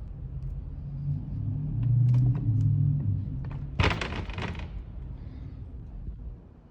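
A door swinging under its door closer with a low rumble and a few small clicks, then a short rattling clatter of the latch about four seconds in.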